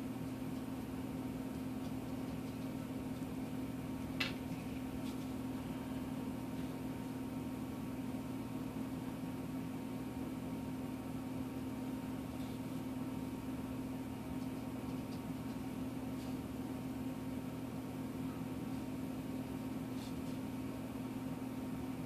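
Steady low hum with a faint hiss, unchanging throughout, and a single faint click about four seconds in.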